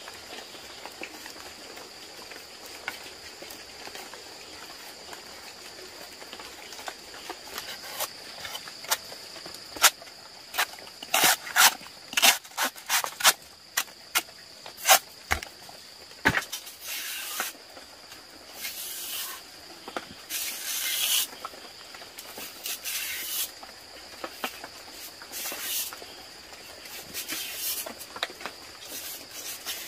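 A steady, high-pitched insect drone runs throughout. In the middle come a run of sharp clicks and knocks, then several short rustling, scraping bursts.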